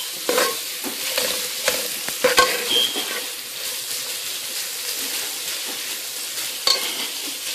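Sliced onion and minced garlic sizzling in hot oil in a pan while a metal spoon stirs and scrapes them. Several sharp knocks of the spoon against the pan in the first couple of seconds, one more near the end.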